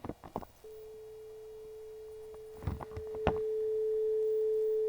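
A 435 Hz sine tone from Audacity's tone generator playing back as a steady, pure, unwavering tone, starting about half a second in and growing louder about three seconds in. A few short clicks sound over it.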